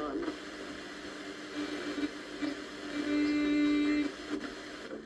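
Analog FM radio's built-in speaker playing a song at moderate volume over faint reception hiss, with a held note a little past the middle.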